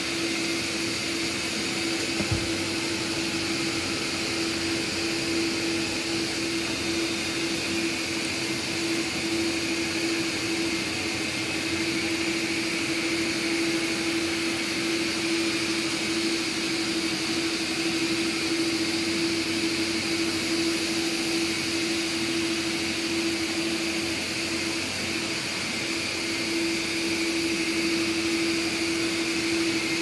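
Several Samsung POWERbot R9350 robot vacuums running together on carpet: a steady whir of suction motors with a strong, even hum and a hiss. A single short click sounds about two seconds in.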